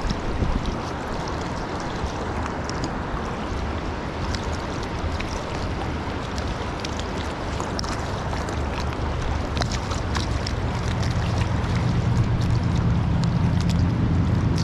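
Steady noise of river water running, with wind buffeting the microphone; the low rumble grows stronger about two-thirds of the way through.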